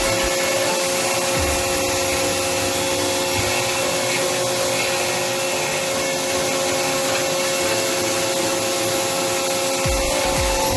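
Resemin Raptor 55 long-hole drill rig drilling with a 64 mm bit: a loud, steady, dense noise with a steady hum through it, and low thuds near the start and again near the end.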